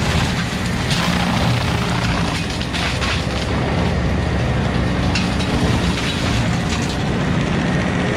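Stump grinder's engine running under load as its cutter wheel grinds into wood, with a steady noisy din and scattered sharp cracks.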